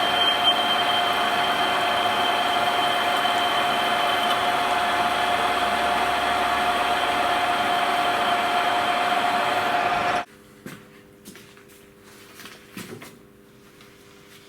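A machine running with a steady whirr and a fixed whine, then cut off abruptly about ten seconds in, leaving a few faint clicks and knocks.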